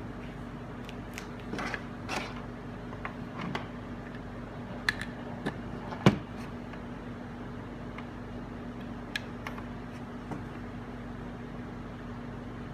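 Cable connectors being handled and plugged in while an HDMI adapter cable is swapped: scattered sharp clicks and knocks, the loudest about six seconds in, over a steady low hum.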